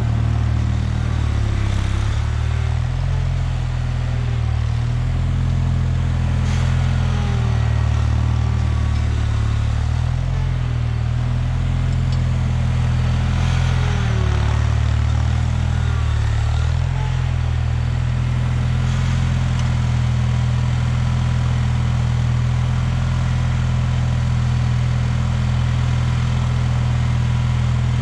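1979 Bolens HT-23 garden tractor's 58 cu in opposed-twin Kohler K582 engine running steadily at working speed. Its pitch dips briefly now and then.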